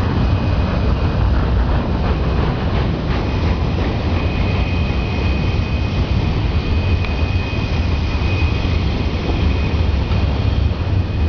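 Loaded steel-slab gondola cars of a freight train rolling by on a curve: a steady, heavy low rumble of steel wheels on rail. A thin high wheel squeal from the flanges grinding on the curve comes and goes, present at the start and again from about four seconds in.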